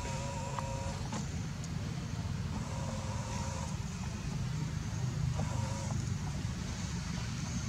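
Steady low rumble of a motor vehicle running, with a faint steady tone that comes and goes three times.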